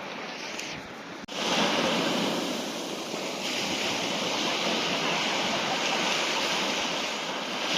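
Sea surf washing onto the shore, a steady rushing hiss of breaking waves. It cuts off abruptly about a second in and comes back louder.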